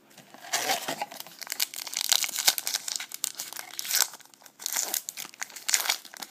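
A trading-card pack wrapper being torn open and crinkled by hand: irregular crackling and tearing.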